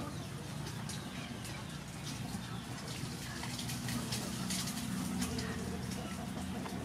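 Birds calling, over a steady low hum and scattered light clicks.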